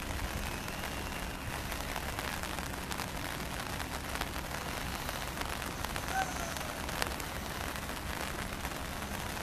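Steady outdoor background hiss with a low rumble, and a few faint clicks. A short high chirp comes about six seconds in.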